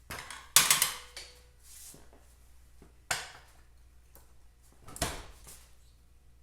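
Metal parts knocking and clanking as a motorcycle centre stand and its filed stop block are fitted to the bike. Several sharp hits, the loudest about half a second in with a brief ring, and others about three and five seconds in.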